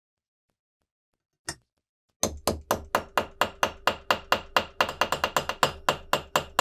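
A small ball-peen hammer taps rapidly on the end of a steel pin, peening it over to rivet it into the cast-metal body of a saw tooth setter. The light, even metallic strikes come about five a second, start about two seconds in and carry a ringing note, after one faint click before them.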